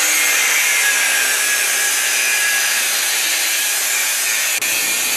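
A power tool running steadily at full speed, a loud hissing whir with a faint high whine in it.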